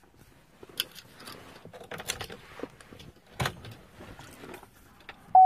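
A few sharp clicks and rustles of handling in the truck cab, then near the end the Chevy Silverado's dashboard warning chime starts dinging, a loud steady tone.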